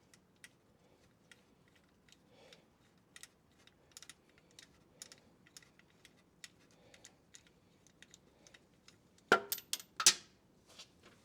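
Irregular small metallic clicks and taps of hand tools and bolt as a replacement idler pulley is fitted, with a few loud sharp metal clanks about nine and ten seconds in.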